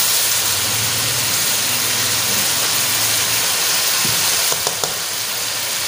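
Beef frying in hot ghee in a cooking pot, a steady sizzling hiss as chopped onion and tomato go in, over a low hum. A few light clicks about four and a half seconds in.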